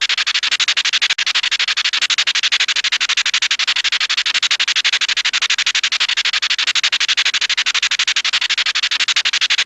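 Hanna-Barbera cartoon skid sound effect: a long, loud, rapidly pulsing scraping screech at a steady rate, with a brief break about a second in.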